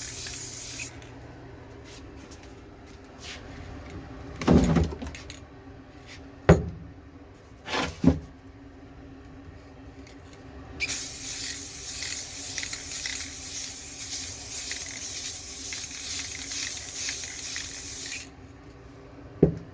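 Aerosol can of clear matte coating spraying: a hiss that stops about a second in, a few knocks and clunks, then a second long hiss of about seven seconds, and a thump near the end.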